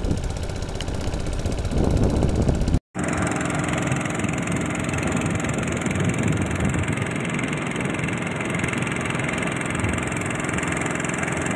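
Small air-cooled stationary petrol engine on an outrigger fishing boat running steadily, driving the long propeller shaft under way. The sound drops out for a moment about three seconds in, then the engine carries on.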